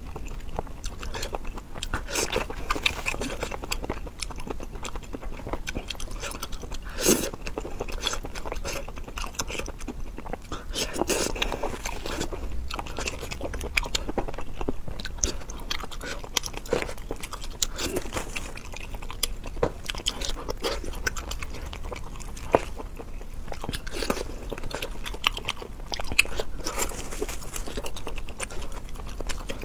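A person biting and chewing food close to the microphone, with many short, sharp crunching clicks; one click about seven seconds in is louder than the rest.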